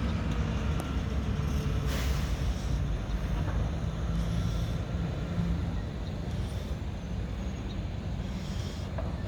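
Mack McNeilus front-loader garbage truck's diesel engine running steadily, with a short hiss about two seconds in.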